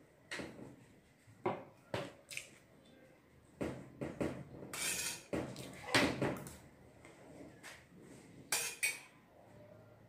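Metal spoon clinking and scraping against a metal bowl of fried rice while eating: about ten separate short strikes scattered irregularly, with one longer scrape near the middle.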